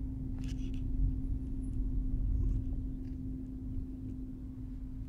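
A car idling, heard from inside the cabin: a steady low rumble with a constant hum, and a few faint clicks.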